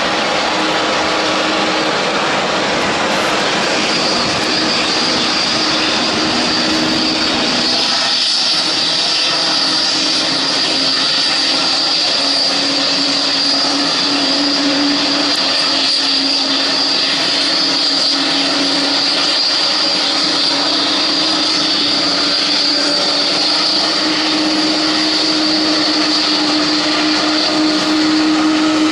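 Jet airliners running on an airport apron: a steady loud rush with a high whine that comes in about four seconds in, and low hums that shift in pitch.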